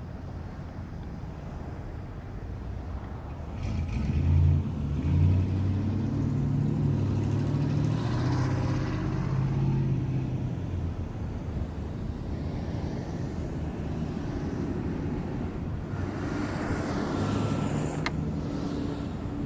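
A motor vehicle's engine running steadily, swelling about four seconds in and easing after ten seconds, with a couple of faint clicks.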